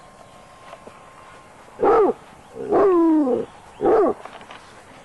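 Basset hound baying three times: a short bark, a longer drawn-out bay that falls in pitch, then another short bark.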